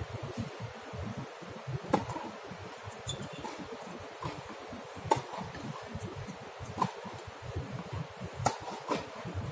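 Tennis ball struck by rackets and bouncing on a hard court during a rally: a string of sharp pops a second or more apart, the loudest about two, five and eight and a half seconds in, over a low rumbling background.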